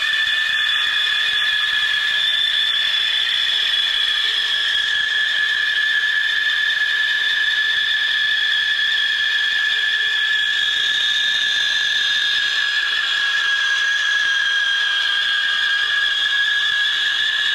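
Bandsaw with a 1/4-inch blade running and cutting through a cabriole leg blank: a steady, high two-pitched whine over a light hiss that holds level throughout.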